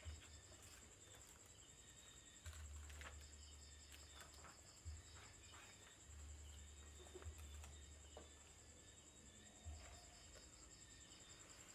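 Faint, steady high-pitched trilling of crickets, with a few soft clicks and knocks scattered through it.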